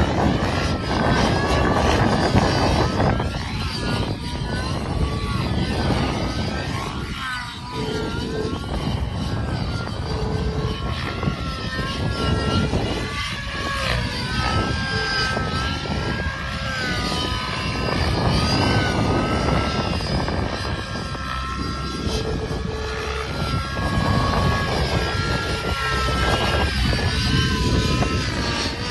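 Nitro glow engine and rotor of a Protos 700 radio-controlled helicopter flying aerobatics, a steady high-pitched running note that swings up and down in pitch as the helicopter manoeuvres.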